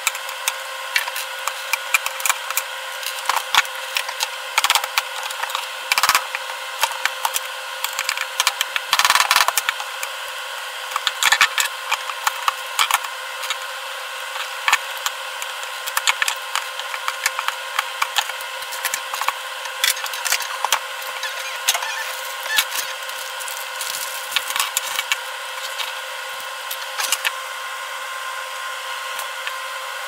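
Hand tools prying the old latch plate and its rivets off a Singer Featherweight sewing-machine case: irregular metal clicks, taps and scrapes of a screwdriver and pliers, busiest in the first half, over a steady background hum.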